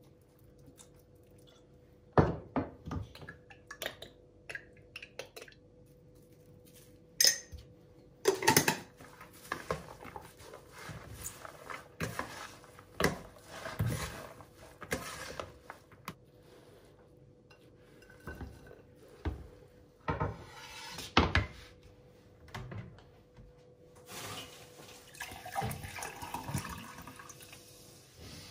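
A metal spoon scraping and clinking against a plastic bowl as a grain-and-lentil salad is stirred, in irregular bursts. Near the end, water is poured from a bottle into a glass, the pitch of the pour rising as the glass fills.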